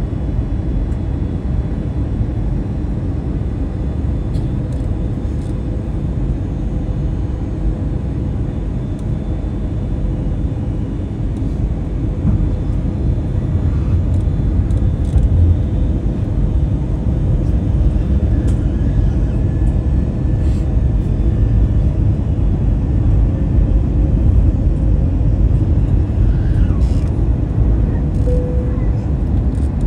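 Steady low rumble of a passenger airplane's engines and airflow heard inside the cabin on the approach to land, with a faint steady hum above it. It grows a little louder partway through.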